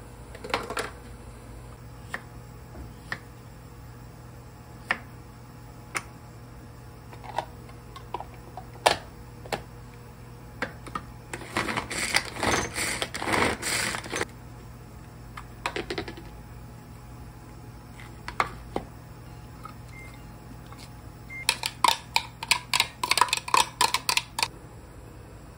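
Pull-cord manual food chopper rattling as its cord is pulled again and again, spinning the blades through cooked pumpkin. The main run of rattling comes about twelve seconds in, among scattered single clicks and knocks, with another quick run of clicks near the end.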